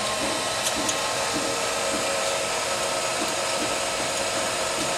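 Freshly primed electric well pump running steadily, a constant motor whir with a few steady tones through it, while it pumps water up through the lines.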